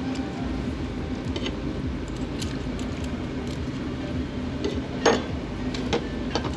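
Tableware clinking at a meal: bowls, spoons and clam shells knocking, a few short clicks over a steady background hum, with the loudest clink about five seconds in.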